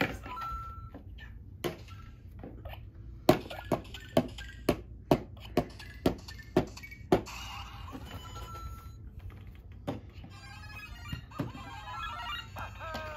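Electronic beeps and jingles from a LEGO Super Mario interactive figure's small speaker, with a run of sharp plastic knocks in the middle, about two a second, as the Sumo Bro Topple Tower set is hit. A falling electronic tune sounds near the end.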